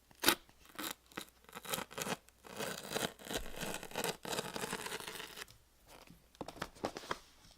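The seal of a cardboard product box being torn open: a sharp snap just after the start, then a few seconds of tearing and rustling, and a few light clicks near the end.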